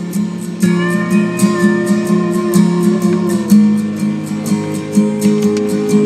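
Country music playing on the car stereo: strummed guitar over a steady beat, with a held melody line in the first half.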